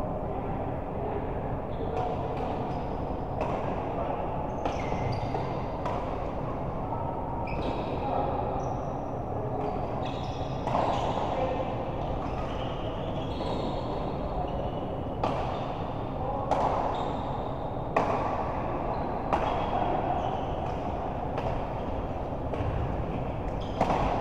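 Badminton doubles rally: sharp racket strikes on the shuttle every second or two, short high squeaks of shoes on the court floor, over a steady background of voices.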